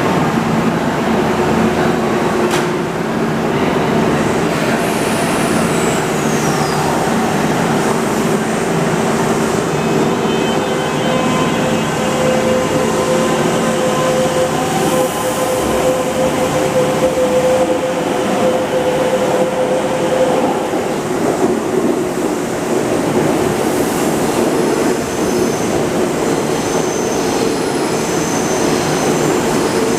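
Kintetsu 22000 series electric limited express train running out of the station: a steady rumble of wheels and running gear with a held electric motor hum, and a short falling whistle about five seconds in.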